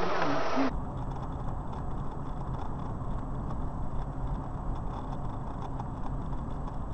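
Steady road and engine rumble of a car driving along a highway, heard from inside the cabin by a dashcam, starting after a short snatch of voice in the first second.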